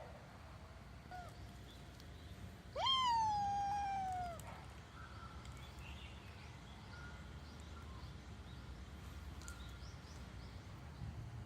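A cat's single long meow, rising quickly and then falling slowly, with faint bird chirps in the background.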